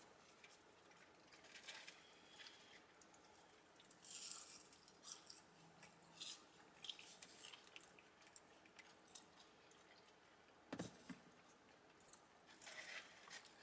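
Faint chewing and mouth sounds of someone eating, with scattered soft clicks and a sharper knock about eleven seconds in.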